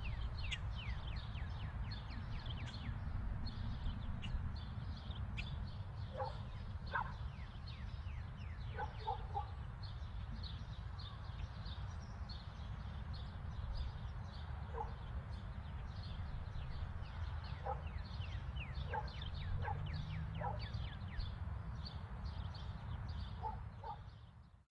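Ambient outdoor sound: many birds chirping in quick falling notes, a dog barking now and then in short groups, over a low steady rumble. Everything fades out just before the end.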